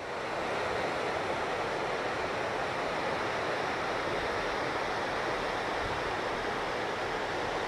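Steady rush of white water pouring from a hydroelectric powerhouse's turbine outlet over a weir into a rocky creek, the sign that the plant's turbine is running and discharging.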